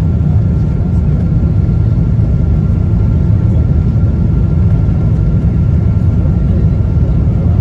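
Steady, loud low rumble inside a Boeing 777-200's cabin on short final approach: the engines and the air rushing past the fully extended landing flaps, with a faint steady high whine. The aircraft has not yet touched down.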